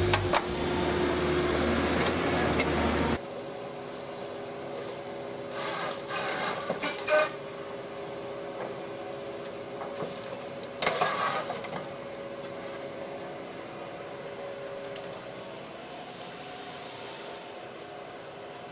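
Excavator engine and hydraulics running while a Bracke C16 felling head cuts brush and small trees. The sound drops suddenly about three seconds in to a quieter steady hum, broken twice by short louder bursts of cutting.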